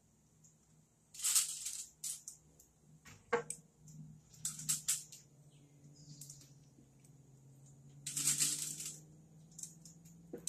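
Metal tongs setting chicken legs into a metal sheet pan of broth: several brief scraping clatters of tongs and meat against the pan, the loudest about a second in and again around eight seconds in, with a sharp click a little after three seconds.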